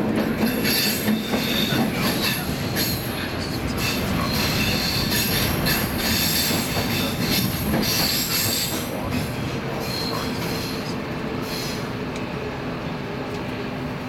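Stockholm Metro C14 train running through a tunnel, heard from inside the car: steady wheel-on-rail noise with intermittent high wheel squeal, easing off a little in the last few seconds.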